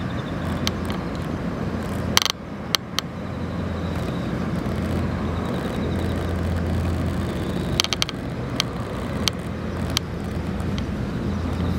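Outdoor background: a steady low hum over a general noise haze, with a few sharp clicks about two seconds in and again around eight to ten seconds in.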